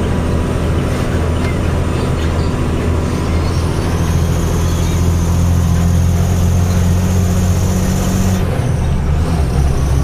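Diesel truck engine running under way, heard from inside the cab as a steady low drone with road noise; its note changes about eight and a half seconds in.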